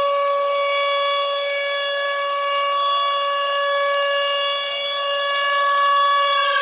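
Recorded hockey goal horn played from a goal horn app: one long, loud, steady blast at a constant pitch with strong overtones.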